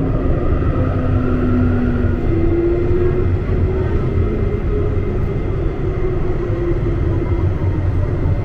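Guangzhou Huangpu Line 1 tram running: a steady low rumble of wheels on rail, with an electric whine from the tram's drive that slowly glides up and down in pitch.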